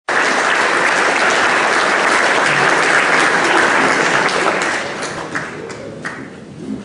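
Audience applauding in a hall, dying away after about five seconds to a few last scattered claps.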